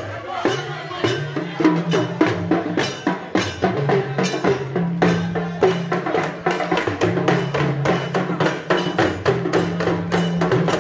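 Street drumming by a traditional drum ensemble: rapid, closely spaced drum and wood-block strokes in a busy rhythm, with low drum tones that step up and down in pitch.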